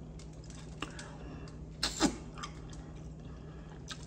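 Wet mouth smacking and chewing while eating mussels, with a few sharp smacks and the loudest about two seconds in. The eater puts the smacking down to her braces.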